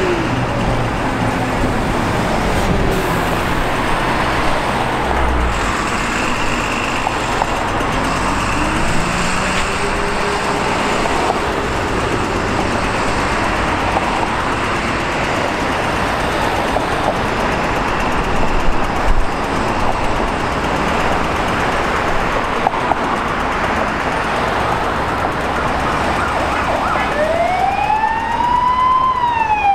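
Steady road traffic noise with vehicle engines running. About three seconds before the end an emergency vehicle's siren starts wailing, rising and falling in pitch.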